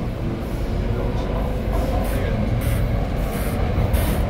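Cabin running noise of a Shenzhen Metro Bombardier MOVIA 456 train: a steady low rumble of wheels and running gear that slowly grows louder. Short high hissing pulses repeat about twice a second over it.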